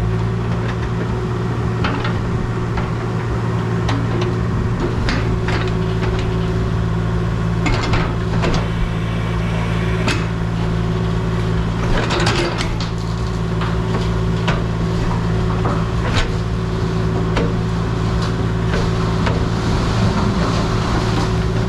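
Heavy digging machine's engine running steadily, with scattered sharp knocks and clanks as the buried oil tank is worked out of the ground.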